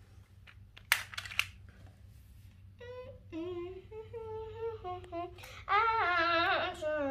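A child humming a wordless tune in held notes that slide up and down, starting about three seconds in and growing louder near the end. Before it, a few sharp plastic clicks from a Rubik's Cube being twisted.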